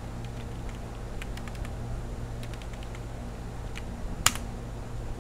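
Computer keyboard typing: scattered key clicks, with one sharply louder key strike a little past four seconds in, over a steady low hum.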